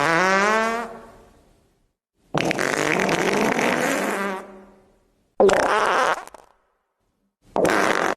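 A string of fart sounds, buzzy and pitched: one trailing off just after the start, a long one from about two seconds in, then two shorter ones near the end, with dead silence between them.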